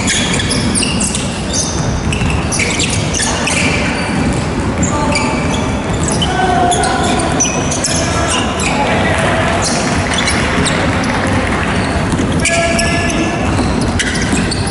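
Basketball game on a hardwood gym floor: the ball bouncing, many short high sneaker squeaks, and scattered shouts from players, all echoing in a large hall.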